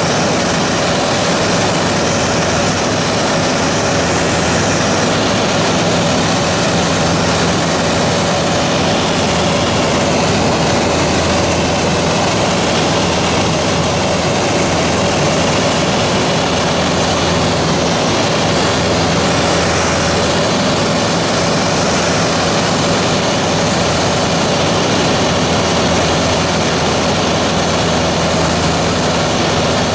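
Steady drone of an aircraft's engines and airflow heard inside the cabin in flight, with a constant humming tone running through it.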